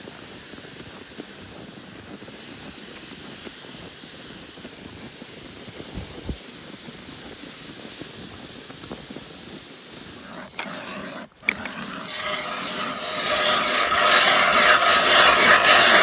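Steady snow-crunching footsteps and a plastic ice-fishing sled sliding over snow, heard as a soft hiss. About ten seconds in the sound briefly drops out, then turns into a much louder rough rubbing noise right at the microphone.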